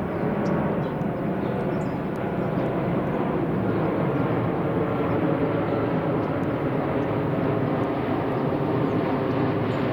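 Steady whir of a camera drone's motors and propellers, an even hum with several pitched tones over a rushing noise.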